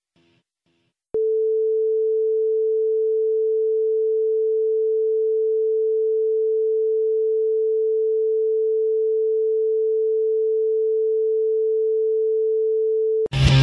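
A steady electronic sine tone, one unchanging mid-pitched note, starts suddenly about a second in and holds for about twelve seconds. It is the kind of test tone that goes with a broadcast apology card. It cuts off just before loud heavy rock music with electric guitar starts near the end.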